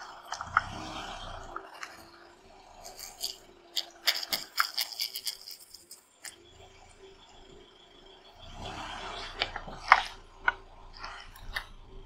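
Plastic bottles of liquid crackling and crunching under a slowly rolling car tyre on asphalt, in two bouts of sharp snaps and crackles: one a few seconds in and another near the end, where a single loud snap stands out.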